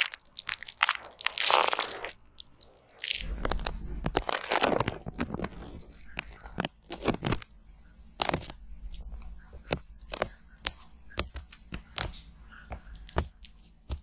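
Close-up rubbing and crinkling of a tissue against a silicone ear microphone. From about three seconds in: many sharp crackles and clicks of a sticky film being peeled off a black silicone ear microphone, over a low steady hum.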